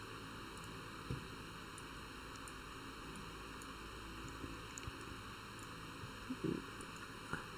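Faint steady microphone hiss, the background of a voice-over recording, with a few soft low thumps: one about a second in and two near the end.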